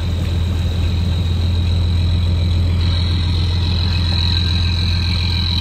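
Lobster boat's engine running at slow speed, a steady low drone with a thin high whine over it.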